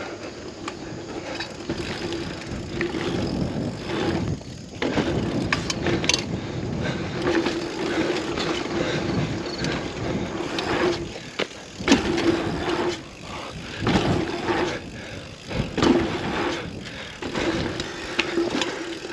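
Bicycle rolling over hard-packed dirt trail and jumps: steady tyre and frame rattle noise, with a few sharp knocks as it lands off bumps, two loudest in the second half.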